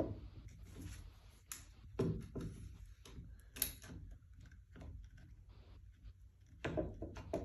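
Handling noise from a seat spring and its metal seat mechanism being worked into position, with scattered clicks and a few sharper clunks as the spring tip is lined up with its notch.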